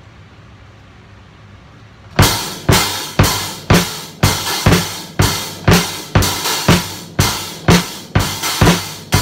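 Drum kit with cymbals played: after about two seconds of quiet, a steady beat starts, about two hits a second, with cymbals ringing between the strokes.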